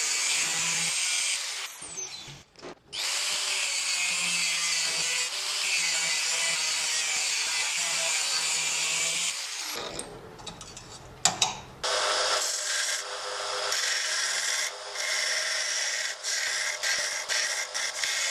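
An angle grinder's cut-off disc cuts through a steel saw blade with a steady, high grinding noise. It eases off briefly once near the start. About ten seconds in the sound changes, with a couple of sharp clicks. From then on a narrow-belt grinder grinds the edge of the steel blank, the sound dipping each time the steel shifts against the belt.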